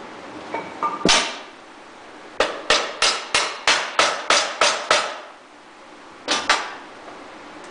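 Hammer blows on metal: one hard strike about a second in, then a quick run of about ten blows at roughly four a second, and two more near the end.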